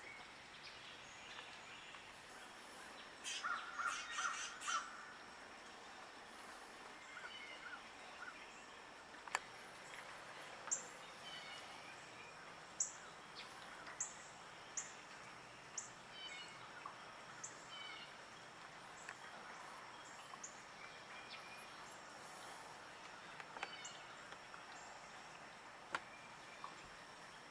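Birds calling. A quick run of loud calls comes about three to five seconds in, then short high chirps are scattered through the rest.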